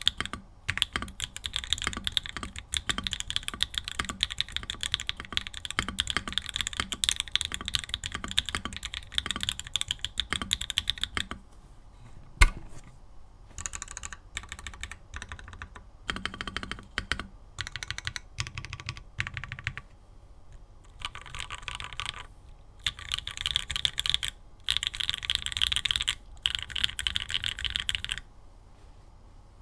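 Typing on a Mode Tempo 60% mechanical keyboard with ABS keycaps and Obscura switches and no foam inside the case. Fast continuous keystrokes for about eleven seconds, then one sharp, louder clack, then shorter bursts of typing with pauses between.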